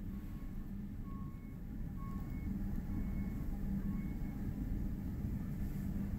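Steady low rumble of Niagara Falls heard from a distance, growing a little louder about two seconds in.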